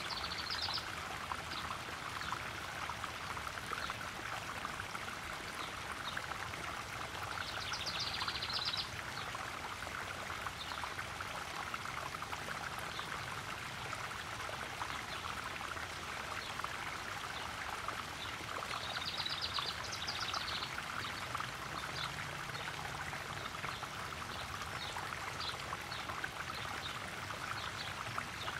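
Garden pond waterfall splashing steadily into a koi pond. A brief high trill sounds three times: at the very start, about eight seconds in, and about twenty seconds in.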